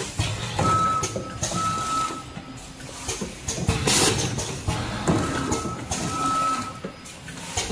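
Automom ATM-320C vertical form-fill-seal packing machine with a measuring-cup filler running: mechanical clatter and clicks that come round in a cycle every few seconds, with brief high-pitched tones sounding between them.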